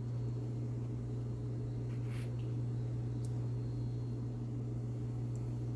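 Steady low hum of a fan or motor, with a faint short hiss about two seconds in and a small tick about a second later.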